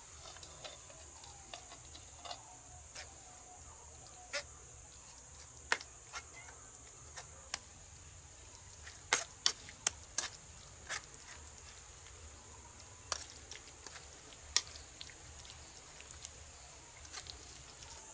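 Tomato pulp being pressed and rubbed through a steel mesh strainer over a stone pot, giving scattered sharp clicks and taps against the strainer, thickest about halfway through. A steady high insect drone runs underneath.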